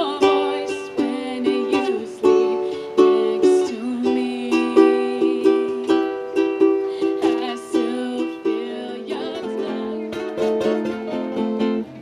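Ukulele playing an instrumental passage: picked notes in quick succession, the playing turning faster and denser near the end.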